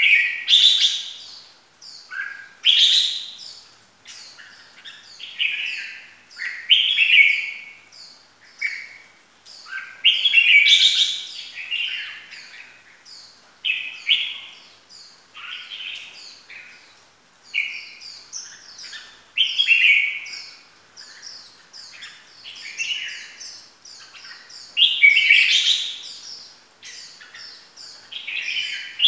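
Red-whiskered bulbul singing: short, loud, warbling whistled phrases repeated every second or two, with quick higher chirps in between.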